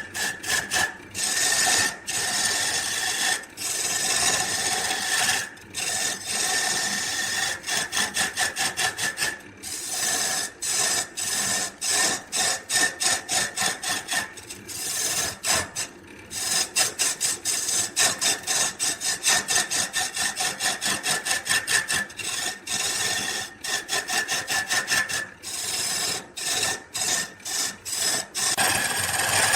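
A hand tool worked over wood in quick, repeated rasping strokes, in runs of several strokes a second with short pauses between runs.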